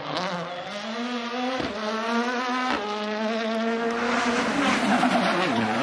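Ford Fiesta WRC rally car's 1.6-litre turbocharged four-cylinder engine at high revs under hard acceleration, with two sharp cracks about a second apart at gearchanges. In the last couple of seconds a rushing noise grows and the engine note dips.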